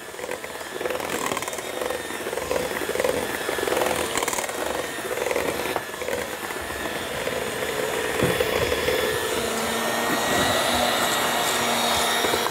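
Electric hand mixer running steadily in a stainless steel bowl, beating apple cake batter.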